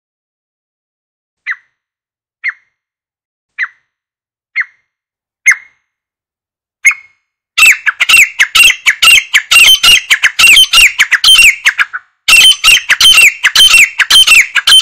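Grey francolin calling: single short notes about a second apart, getting louder, then about halfway through a loud, fast run of repeated calls that breaks off briefly and starts again near the end.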